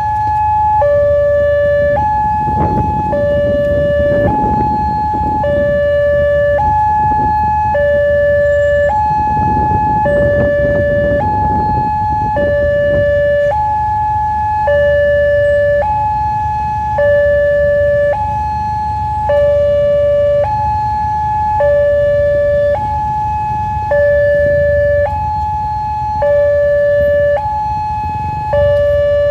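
Electronic warning alarm of a Wantech railway level-crossing signal, sounding two tones in turn, a higher one and a lower one, about a second each and repeating steadily: the crossing is closed for an approaching train. A low rumble of engines swells under it twice.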